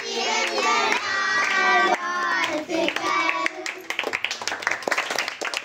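A group of children singing together while clapping their hands. About three and a half seconds in the voices fade and scattered hand claps carry on.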